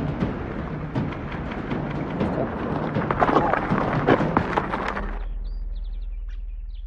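Dramatic cinematic soundtrack: a dense rumbling, crashing layer of hits over a steady low drone. About five seconds in, the crashing stops and only the low drone remains, with a few faint high tones.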